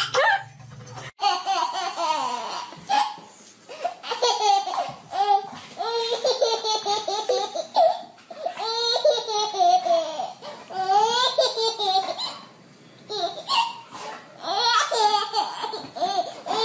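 A baby laughing hard in repeated bouts of high-pitched laughter, with short pauses between them.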